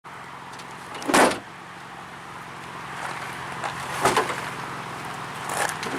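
A Toyota Yaris door being shut twice, two loud thumps about three seconds apart over a steady low hum. The door is out of alignment and won't latch.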